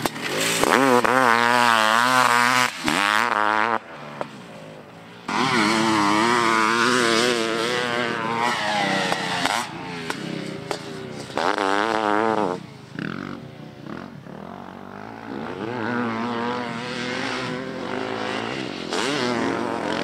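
Honda CR500AF dirt bike's 500 cc two-stroke single-cylinder engine being ridden hard, its revs rising and falling again and again with the throttle. The engine eases off briefly about four seconds in and again around thirteen seconds.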